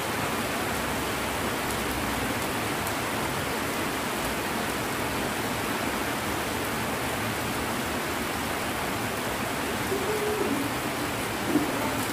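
Heavy rain falling steadily, an even hiss with no let-up. Near the end a couple of brief, slightly louder sounds stand out over the rain.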